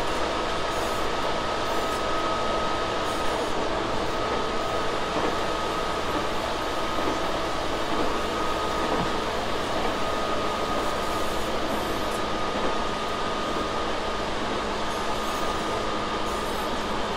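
Tobu 6050 series electric train heard from inside the carriage, running at a steady speed: an even rumble of wheels on rail with a few steady whining tones over it.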